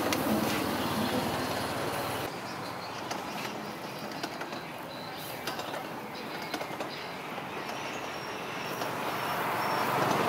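Chain-and-sprocket rotisserie turning spits of ducks over charcoal: a steady mechanical rattle with scattered clicks.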